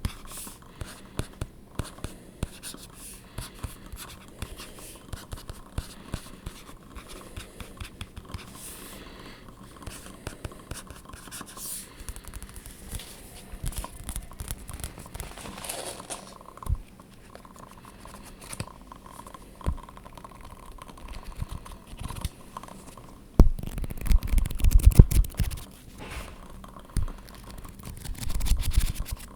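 Tapping and scratching on objects for ASMR: a steady run of light taps and scrapes, then a louder, denser bout of scratching a little past two-thirds of the way in, with another shorter bout near the end.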